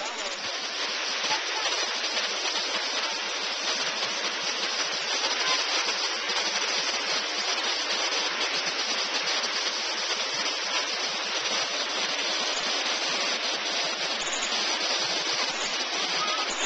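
Steady rush of flowing water, like a waterfall or fast stream, an even hiss with no breaks or changes.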